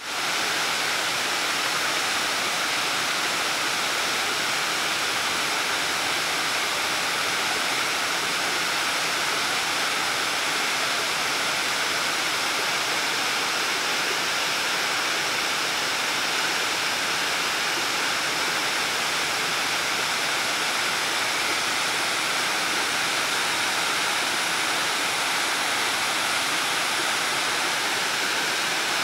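The Fountain of Neptune's tall water jets and cascade splashing down into the pool: a steady, unbroken rush of falling water.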